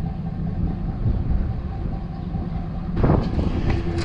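GMC Sierra pickup's engine running steadily, with wind on the microphone and a brief metallic clatter about three seconds in.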